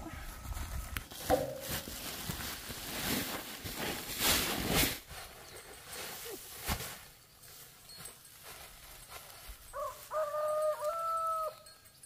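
Rustling and knocking of woven plastic sacks of threshed rice being handled, then a rooster crowing once near the end in a few held notes that step up in pitch.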